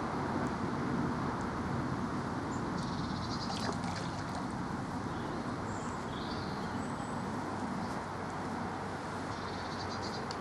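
Fishing reel ticking in two short runs of fast, even clicks while a hooked carp is played, over a steady outdoor rumble, with a few bird chirps in between.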